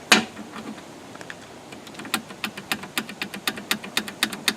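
Light clicking of the table saw's anti-kickback pawl and blade guard parts being handled: one sharp click near the start, then a quick, fairly regular run of clicks, about five a second, from about two seconds in.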